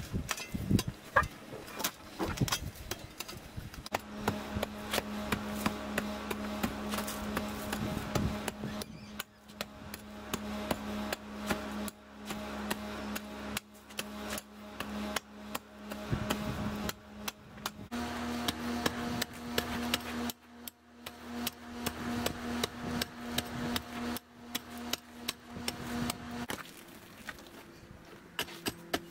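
Rapid sharp knocks and scrapes of hand tools working stony soil and wooden form boards while a shovel digs out a walkway bed, with a steady droning tone under most of it.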